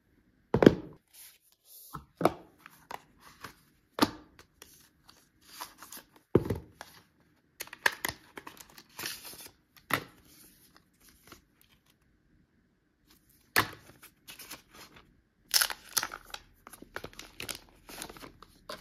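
Unboxing handling noise: a scattered series of sharp taps and clicks as smartphones and packaging are picked up and set down on a table. A pause comes partway through, then dense paper rustling and crinkling near the end as a paper protective wrap is peeled off a phone's screen.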